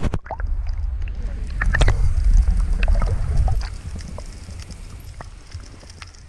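Muffled underwater sound picked up by a camera in its waterproof housing: a low rumble of water moving past, with scattered sharp clicks and ticks. The rumble fades about three and a half seconds in, leaving the faint clicks.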